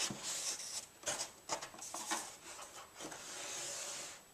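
Smart telescope's plastic body rubbing and scraping against the molded foam of its carry case as it is lifted out, with a few light knocks and a longer, steadier rub near the end.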